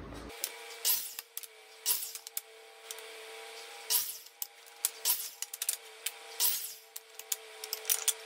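Wooden strips being handled and cut at a miter saw: a series of short, sharp knocks and scrapes at irregular intervals over a steady hum.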